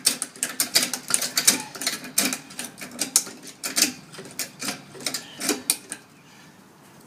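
A car jack being cranked by hand to lift the vehicle: a quick run of repeated clicking, ratcheting strokes at about three a second, stopping about six seconds in.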